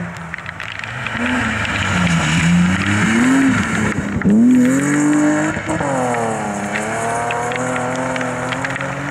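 Rally car engines revving hard on a gravel stage, rising and falling in pitch several times, over a steady hiss of heavy rain.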